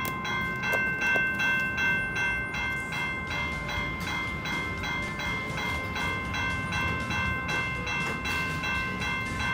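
Railroad crossing warning bell ringing in rapid, even strokes, about three a second, as the crossing signals flash and the gate comes down, over a low rumble.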